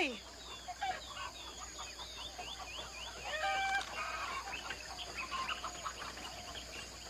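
Jungle ambience of birds chirping in quick repeated sweeps, with a short clucking call about three and a half seconds in, over a steady high insect drone. A woman's shout is just dying away at the very start.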